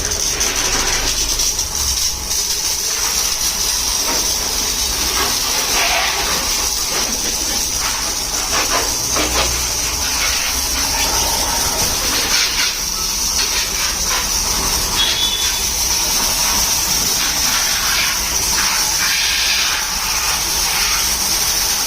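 High-pressure washer spraying water over a car at a wash bay, a steady loud hiss with a few short knocks.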